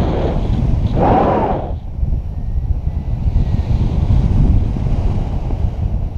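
Wind buffeting an action camera's microphone in flight under a tandem paraglider: loud, gusty low rumbling with no engine.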